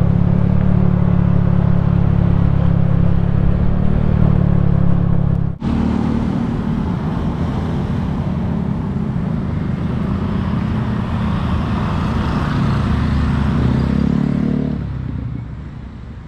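Honda Scoopy scooter's single-cylinder engine running steadily under way, mixed with wind and road noise. The sound breaks off sharply about five and a half seconds in, resumes, and fades out near the end.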